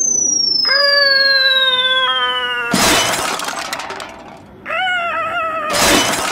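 Cartoon-style sound effects: a long falling whistle with a held, slightly drooping cry over it, ending about three seconds in with a loud crash of shattering glass. A second wavering cry follows, cut off by another glass-shattering crash near the end.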